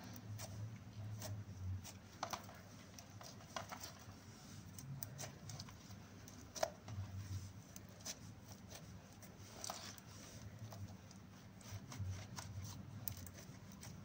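Hands kneading and pressing clear slime mixed with eyeshadow powder: soft sticky squishing with irregular small pops and crackles, one sharper pop about six and a half seconds in.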